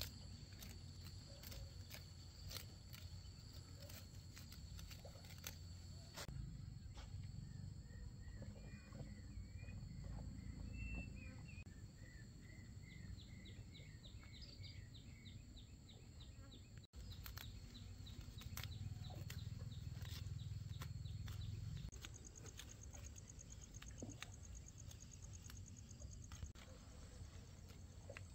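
Faint rural outdoor ambience over a low rumble, with scattered sharp clicks. A run of short bird chirps comes a third of the way in, and later a high, fast trill.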